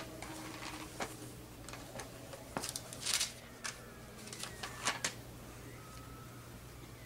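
Pages of a book being turned and flipped by hand: paper rustling with a run of short, crisp flicks, the loudest about three seconds in.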